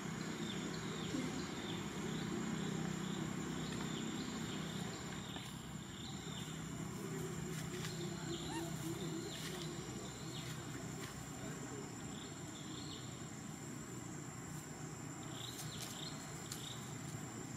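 Outdoor ambience: a low steady rumble under runs of short high chirps and a thin, steady high whine, with a few faint clicks.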